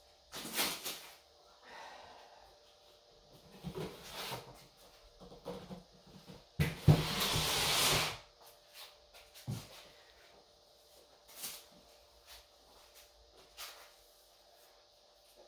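Unboxing handling noise: scattered rustles, knocks and slides of packaging, with one louder scraping rustle lasting about a second around the middle.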